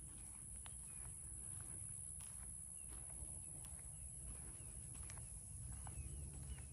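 Faint outdoor background: a low rumble under a steady high hiss, with scattered quiet short chirps and small ticks.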